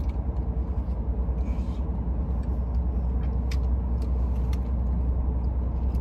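Low, steady rumble of a car idling, heard inside the cabin. A few soft clicks and a brief rustle of eating a wrapped burrito come through over it.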